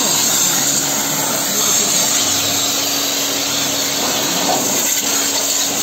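Electric pressure-washer pump running steadily while its lance sprays a high-pressure water jet onto a scooter's front wheel and mudguard: a loud, even hiss of spray over a steady pump hum.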